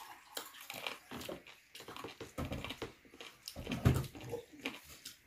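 Close-up wet chewing and lip-smacking of a person eating, with irregular mouth clicks. The loudest sound, a bite, comes about four seconds in.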